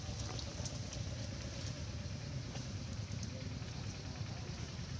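Steady outdoor background noise: a low rumble under an even hiss, with a few faint clicks in the first second or so.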